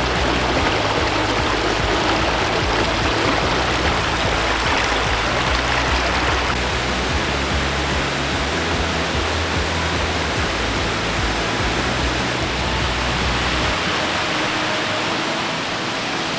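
Steady rushing water from a creek or falls, with soft background music whose sustained low notes shift every few seconds and fall away near the end.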